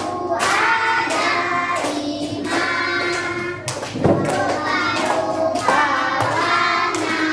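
Young children singing a song together with their teacher, with hand claps, one sharp clap standing out about four seconds in.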